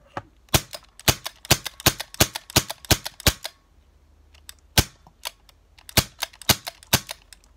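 CO2 BB pistol firing gas shots in quick succession, about four sharp pops a second, each blast piped through a tube into a capped water bottle to carbonate it. A run of shots, a pause broken by a single shot, then another fast run near the end.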